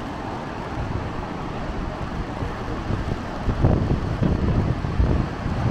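Steady roar of the Jinsha River's rapids rushing through Tiger Leaping Gorge, with wind buffeting the microphone in gusts from about three and a half seconds in.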